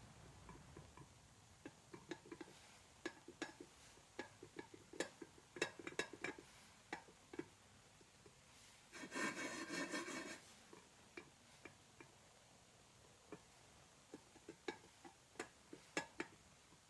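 Scattered light clicks and knocks of small metal parts or tools being handled, with a short rushing, rubbing noise lasting about a second and a half about nine seconds in.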